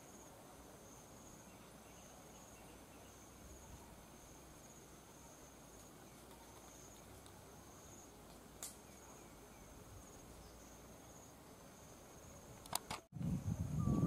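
Faint high-pitched insect trill repeating in short pulses about once a second. A single sharp click comes a little past halfway, and near the end a much louder low sound cuts in.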